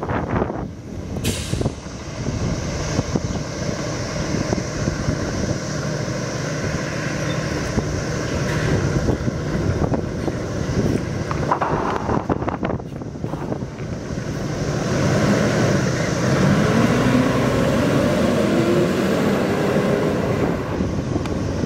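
Fire engine's diesel engine idling, then pulling out and speeding up, with its engine note rising and growing louder over the last several seconds. A short hiss of the air brakes comes about a second in.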